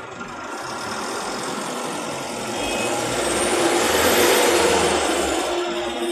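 Motor vehicle pulling away and accelerating in city traffic: engine and road noise build to a peak about four seconds in, with a high whine that rises and falls.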